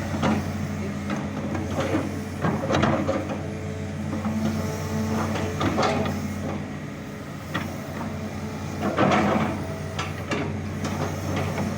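A machine running with a steady low hum, overlaid by irregular knocks and rattling clatter.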